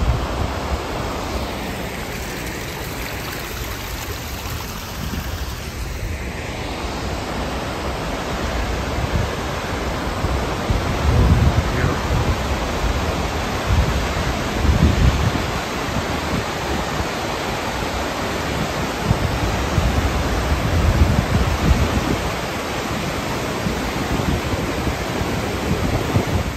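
Waterfall and the creek below it rushing steadily, an even wash of water noise. A few louder low buffets on the microphone come in the second half.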